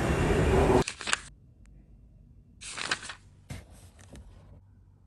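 Loud, dense background noise cuts off abruptly just under a second in. A quiet room follows, with three brief bursts of rustling handling noise.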